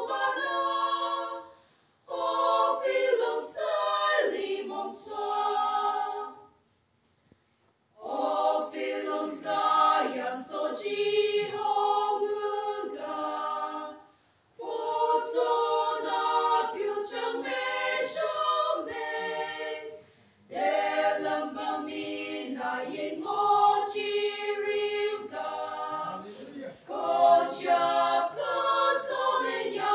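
A small women's choir singing a hymn unaccompanied, in phrases separated by short breaths, with a pause of about two seconds a quarter of the way in.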